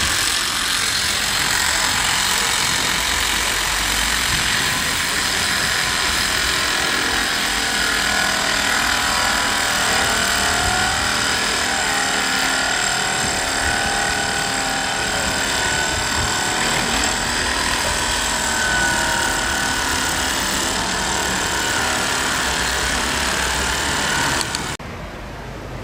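A loud, steady mechanical running noise from a motor or machine, mostly high-pitched with a fine whine in it, which cuts off abruptly about a second before the end.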